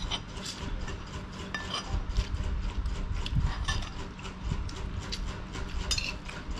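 Metal spoon scraping and clicking against a china plate while rice is scooped up, in many short irregular strokes.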